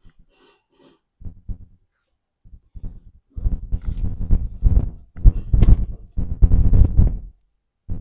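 Muffled low thumping and rubbing in several bursts, short at first and then three longer loud ones, from hands and bodies moving against each other during a manual chiropractic adjustment.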